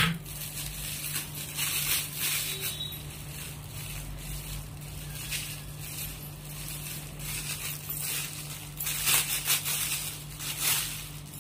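Metallic foil gift-wrapping paper crinkling and rustling as it is crumpled and twisted by hand, in irregular spells that are loudest near the end. A steady low hum runs underneath.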